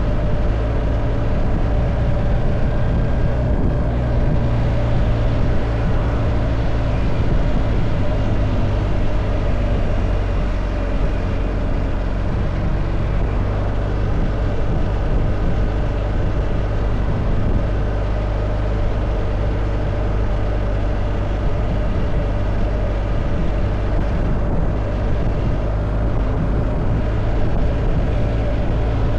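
Steady drone of a motor vehicle's engine and road noise, holding an even level throughout.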